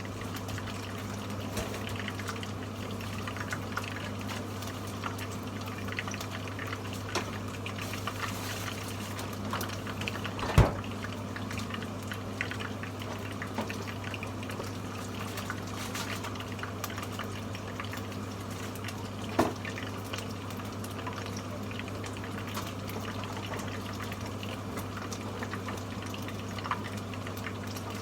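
Karaage (Japanese fried chicken) frying in hot oil: a steady sizzle with fine crackles and bubbling, over a steady low hum. Two sharp knocks stand out, about a third of the way in and again about two-thirds in.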